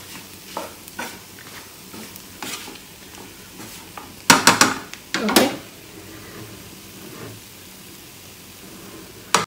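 Spatula stirring and scraping dry-fried chicken in a nonstick frying pan over a low flame, with a light sizzle underneath. Two louder clattering scrapes come about four and five seconds in.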